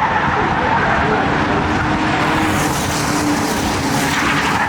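Race car engines running at speed on an oval track, a steady loud mix of engine and tyre noise with engine pitch wavering.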